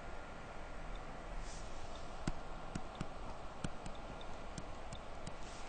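Light, irregular clicks of a stylus tapping on a tablet screen while handwriting numbers, about eight of them in the second half, over a steady background hiss.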